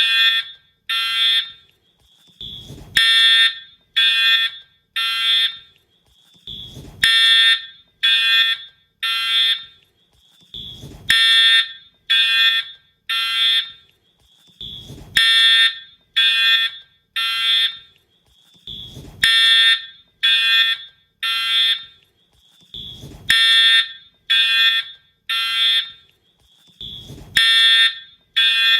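Wheelock-style fire alarm horn sounding the temporal-3 evacuation pattern: three short buzzing blasts, then a pause, repeating about every four seconds. A brief, softer sound comes just before each group of blasts.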